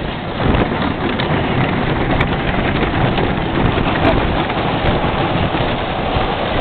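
Loud, steady rush of wind on the microphone mixed with track noise from a wooden roller coaster train in motion.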